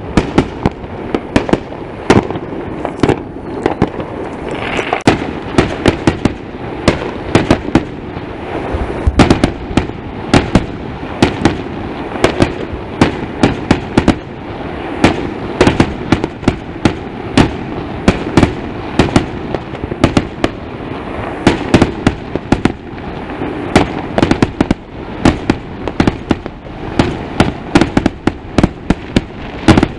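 Fireworks going off in a dense barrage: sharp bangs and pops, several a second, over a steady rumble, as aerial shells burst.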